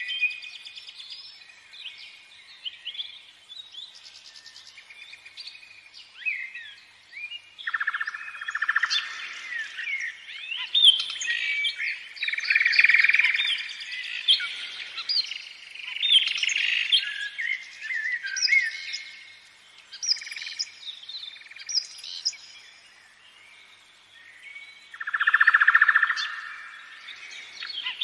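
Birdsong: several birds chirping and singing over one another, with many quick rising and falling whistled notes in bouts that swell and fade.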